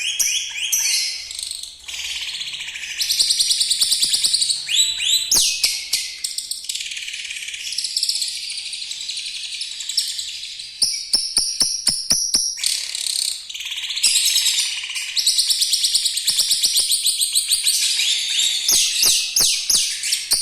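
Lovebird singing a long, harsh ngekek chatter of fast repeated high notes and trills, with canary-like phrases mixed in and brief pauses between runs.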